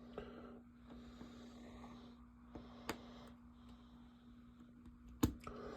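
Faint handling of Lego Technic plastic parts, with sharp clicks as pieces are pushed onto pins: one about three seconds in and a louder one near the end. A steady low hum runs underneath.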